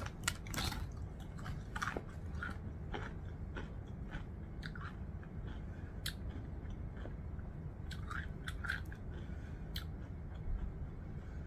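A person chewing a mouthful of food close to the microphone, with short wet mouth clicks scattered throughout.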